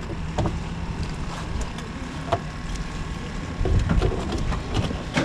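Wind buffeting the microphone in a steady low rumble, with a few light taps and knocks as a snapper is handled and measured on a plastic cooler lid.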